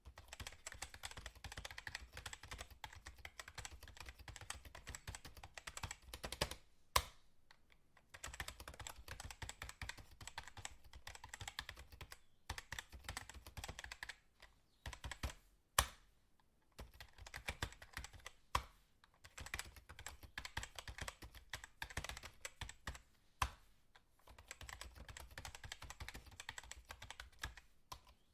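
Fast typing on a computer keyboard: dense runs of key clicks broken by short pauses, with a few louder single keystrokes standing out.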